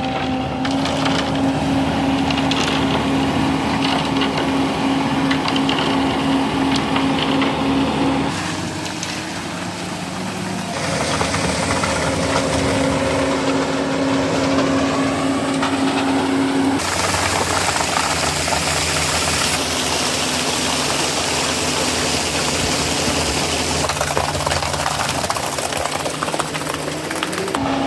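Heavy diesel construction machinery engines running steadily. The engine sound changes abruptly several times, with a strong steady hum in some stretches and noisier running in others.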